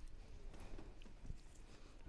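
Quiet theatre room tone with a few faint, short taps of footsteps on the stage floor.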